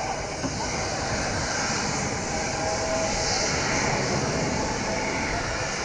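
Steady, distant jet noise from a departing Boeing 737-800's twin CFM56 turbofans as the airliner climbs away.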